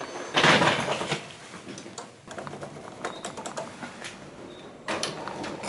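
Handling noise from a handheld camera carried while walking: rustling and small clicks, with two louder rushes of noise, one just after the start and one about five seconds in.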